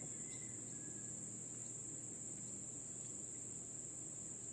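A steady, unbroken, high-pitched drone of insects, such as crickets, chirring by the river, over faint low background hiss.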